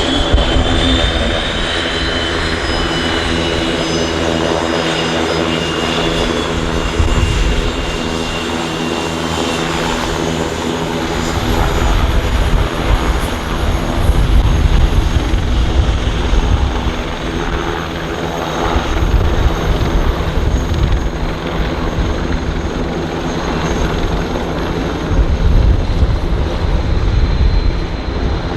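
Two Eurocopter Tiger attack helicopters flying: a steady rotor and engine drone over a rumble that swells and fades as they move, with a higher whine in the first few seconds.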